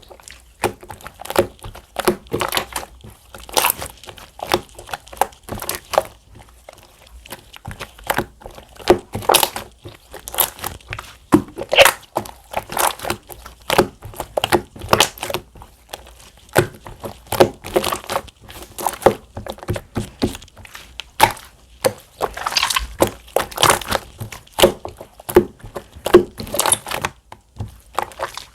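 Clear slime being squished, pressed and stretched by hand, giving a dense, irregular run of small wet clicks and pops.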